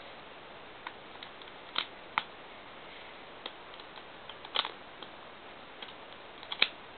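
Plastic Lego bricks clicking and tapping as they are handled: about half a dozen scattered sharp clicks over a steady faint hiss, the sharpest near the end.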